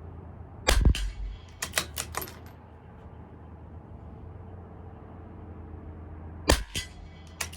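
Two shots from a CZ 457 LRP bolt-action .22 LR rifle firing Eley Subsonic Hollow, about six seconds apart, each a short pop that is pretty quiet for a rifle. Each shot is followed by a quick run of metallic clicks as the bolt is worked to eject the case and chamber the next round.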